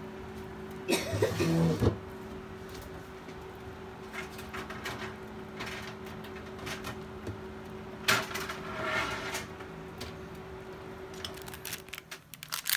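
A steady appliance hum that stops shortly before the end. Brief handling or rustling noises come about a second in and again about eight seconds in.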